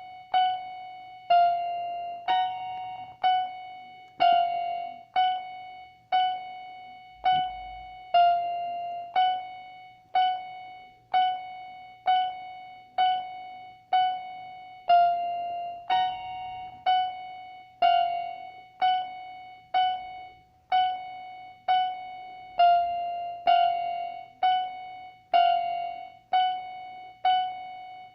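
Electronic keyboard playing a slow, simple melody with a piano-like tone: single struck notes about once a second, each fading away, mostly one note repeated with an occasional higher one.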